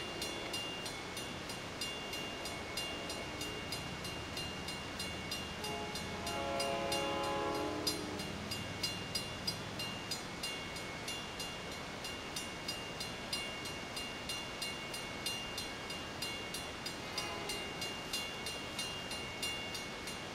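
Grade-crossing bell ringing in a fast, steady rhythm. About six seconds in, an approaching train's multi-note air horn sounds in the distance for a couple of seconds.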